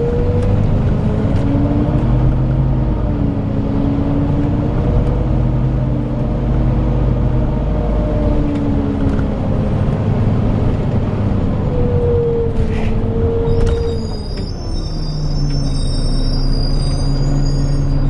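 Volvo B9TL bus's six-cylinder diesel engine heard from inside the passenger saloon, its pitch rising and falling as the bus drives, then dropping to a steady idle about three-quarters of the way through. A high, several-toned whine comes in at about the same time.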